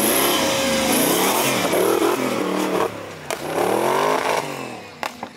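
Off-road race vehicle's engine revving hard over rough dirt, its pitch repeatedly rising and falling as the driver works the throttle. It fades near the end, with a couple of sharp knocks.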